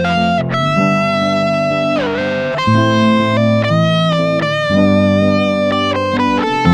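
Background music: a melodic, sustained electric-guitar line over a steady bass, with a bending note about two seconds in.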